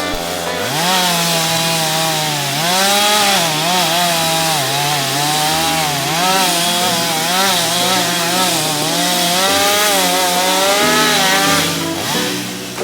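Two-stroke chainsaw running under load as it cuts into a tree trunk, its engine pitch wavering up and down with the cut, dropping back near the end.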